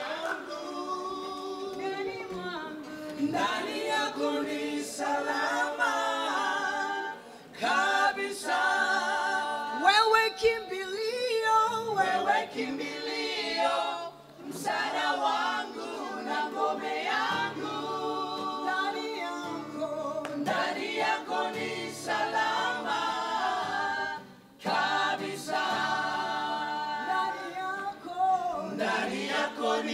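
Small gospel choir of men and women singing together in harmony.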